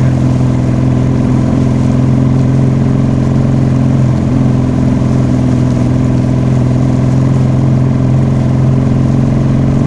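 Bass boat's outboard motor running steadily under way, a constant low drone that holds one pitch throughout, with a steady hiss above it.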